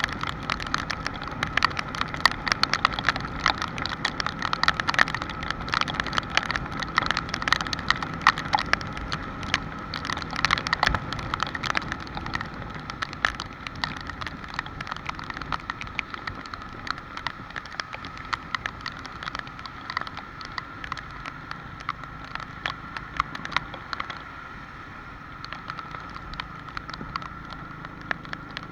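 Rain falling, with many drops pattering sharply on a surface close by; the patter is dense at first and thins out after about halfway.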